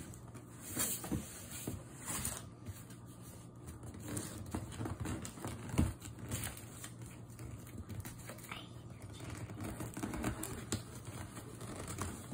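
Fingers scratching and picking at packing tape on a cardboard box: irregular short scrapes, clicks and small tearing sounds, with a duller knock on the box about six seconds in.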